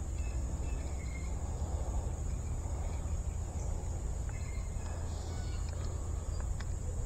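Steady high-pitched drone of insects, such as crickets or katydids, over a low, even rumble.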